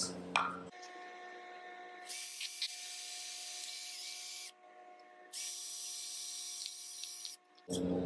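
Cordless drill with a 5/32-inch bit boring through 3/8-inch plywood. It runs as two high-pitched whines of about two seconds each, one for each mounting hole, with a short pause between.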